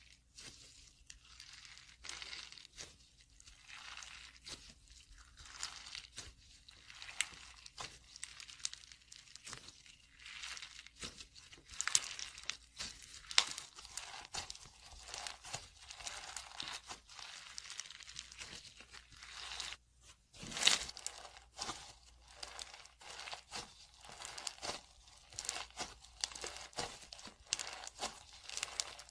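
Green slime packed with glitter flakes being squeezed and stretched by hand, crackling and crunching with a dense run of small clicks and a few louder snaps around the middle.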